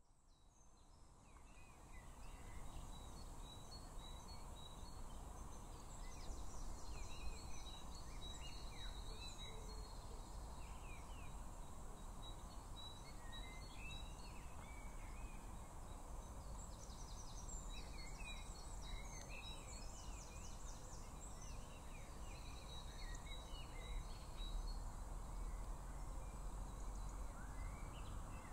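Outdoor ambience fading in over the first couple of seconds: a steady low rumble of background noise with several songbirds chirping and trilling throughout.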